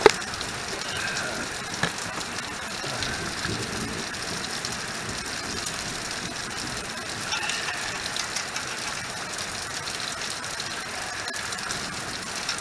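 Steady hiss of rain falling, with occasional small metallic clicks from hand tools as driveshaft bolts are fitted.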